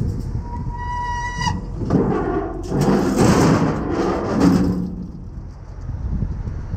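Flatbed rollback tow truck's hydraulic bed being tilted and lowered with the truck running: a steady low rumble, a short high squeal about a second in, then a louder rough noise for about three seconds as the deck comes down.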